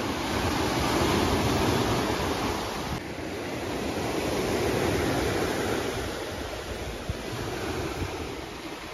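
Lake Michigan waves breaking and washing up on the beach below, swelling twice, with wind buffeting the microphone.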